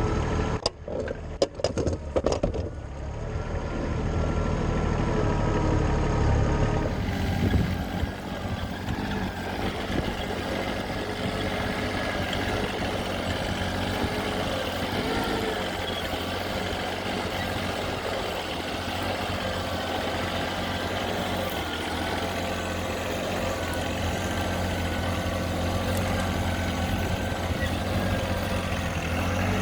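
Kubota compact tractor's engine running steadily, with a few sharp knocks in the first couple of seconds.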